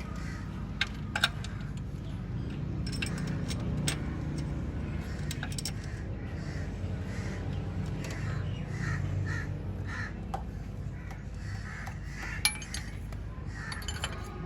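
Crows cawing repeatedly over a steady low hum, with a few sharp metallic clinks of tools.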